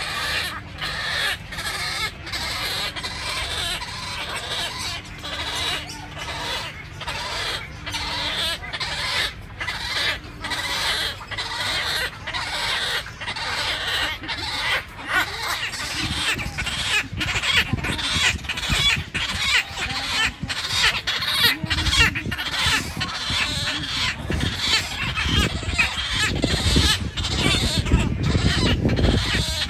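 Many wetland birds calling at once, a dense chorus of short overlapping calls, with a low rumble joining about halfway through.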